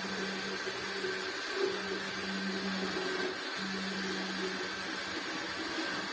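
Countertop electric blender running steadily, its motor grinding a thick mixture of groundnuts, bananas and milk.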